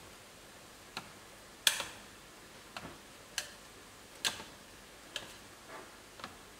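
Wooden chopsticks clicking and knocking against the sides of an aluminium steamer pot while fluffing steamed pandan sticky rice: about eight sharp, irregular clicks, the loudest about a second and a half in.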